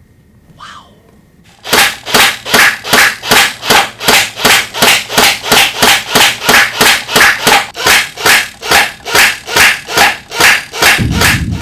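A long, even string of loud bangs, about three a second, like automatic gunfire from a Thompson submachine gun. It starts about two seconds in, and a low rumble like an explosion swells up near the end.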